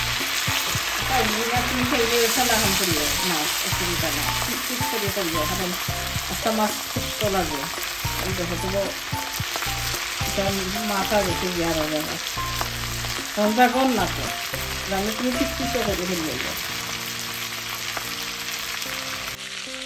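Fish frying in butter on a hot tawa griddle: a steady sizzle.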